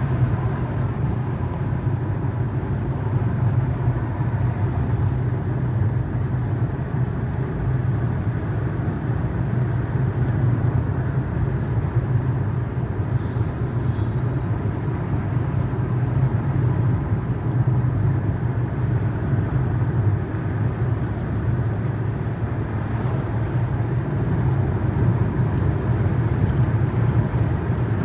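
Steady drone of a car driving at an even speed, engine and tyre noise strongest in the low range.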